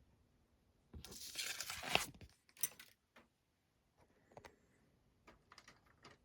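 A crinkling rustle of a model kit's packaging being handled, starting about a second in and lasting just over a second, followed by several light clicks and taps as the plastic parts are moved about.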